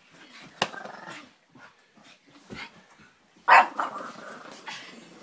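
Small dog growling and barking while it scrambles frantically about on a bed, with one loud bark about three and a half seconds in.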